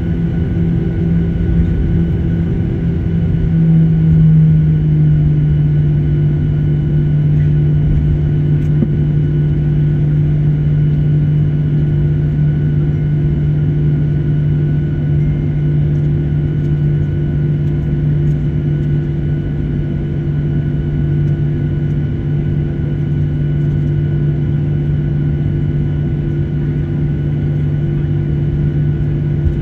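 Airliner cabin noise while taxiing: a steady drone of the aircraft engines and cabin air, with a low hum that dips slightly in pitch and swells about four seconds in, then holds steady.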